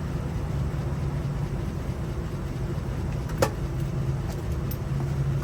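A motor or engine running steadily with a low rumble and hum. There is one sharp click about three and a half seconds in, followed by a couple of faint ticks.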